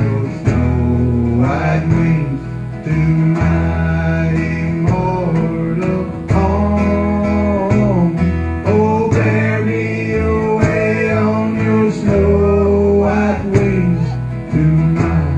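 Acoustic bluegrass gospel band playing: several acoustic guitars strumming over a steady bass, with a lead line that slides and bends between notes.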